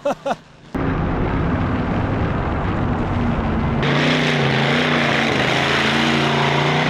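A short burst of a man's laughter, then a monster truck's engine running loud and hard as the truck drives over the dirt course. About four seconds in the sound steps up into a brighter, steady engine note.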